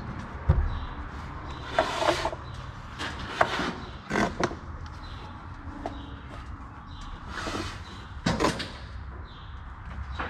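Handling noises of a Marshalltown drywall taping banjo: several separate short scrapes and knocks as mud-coated paper tape is run out of the tool and onto the drywall joints. A steady low hum runs underneath.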